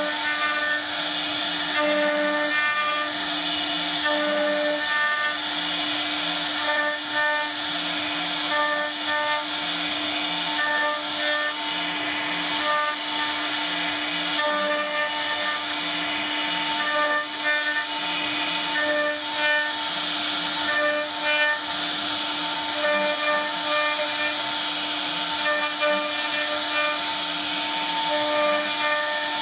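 CNC router cutting wood: a steady whine with a hissing noise, and short tones at several pitches that switch on and off throughout.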